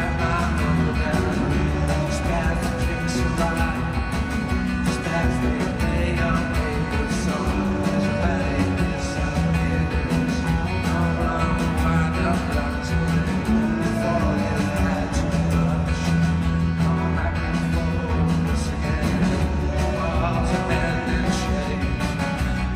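Rock band playing live: steady drums and bass under strummed guitars, with a sung vocal line.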